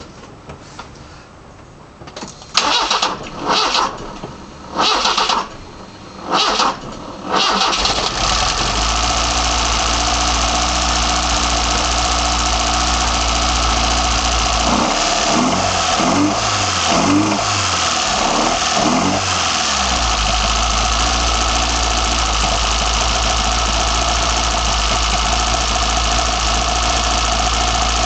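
BMW M10 inline four-cylinder engine on sidedraft individual throttle bodies at its first startup: several short bursts of cranking, then it catches about seven seconds in and runs steadily. A few revs rise and fall around the middle before it settles back to running.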